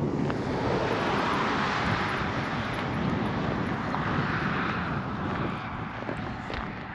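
Rushing noise of a passing engine-driven vehicle, swelling at the start and fading after about five seconds.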